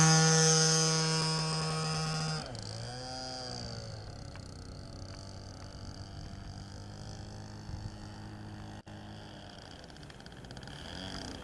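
Radio-controlled model Cessna 152's motor and propeller whining steadily and fading, then throttled back abruptly about two and a half seconds in, the pitch sweeping down. A faint low drone follows.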